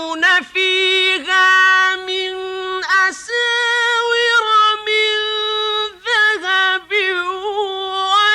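A male reciter's solo voice chanting the Quran in the melodic mujawwad style, unaccompanied. He holds long high notes with ornamented turns, steps up to a higher held note about three seconds in and back down, with short breaths between phrases.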